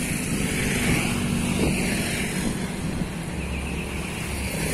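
Steady road traffic noise, vehicle engines running with a low hum.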